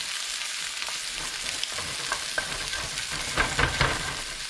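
Frozen peas and diced carrot frying with scrambled egg in a hot pan, sizzling steadily while being stirred, with utensil scrapes and knocks against the pan. A louder run of scraping comes about three and a half seconds in.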